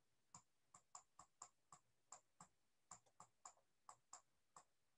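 Faint light clicks, about three a second and unevenly spaced: a stylus tapping on a tablet screen while writing.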